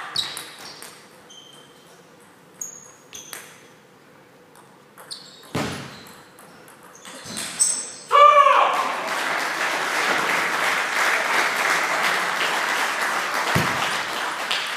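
Table tennis ball clicks in a large hall, with a short squeal about eight seconds in. A steady rushing noise then runs on under the ball strikes as the next rally starts.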